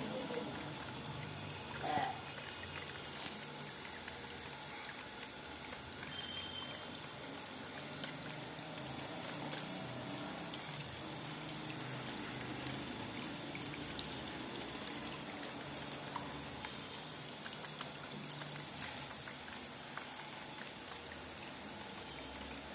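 Small DIY decorative water fountain running, water trickling and splashing steadily. A brief knock sounds about two seconds in.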